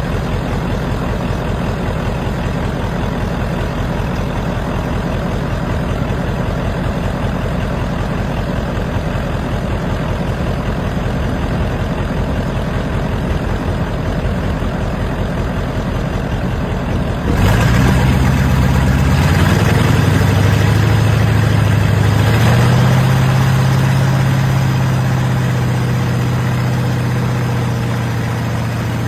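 Boat engine running steadily, then throttled up about two-thirds of the way through: it gets suddenly louder and its pitch climbs in two steps before holding steady.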